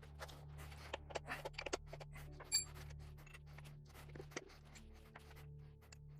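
Low droning background music with scattered metallic clicks and clinks of hand tools and engine parts being handled, including one short metallic ring about two and a half seconds in.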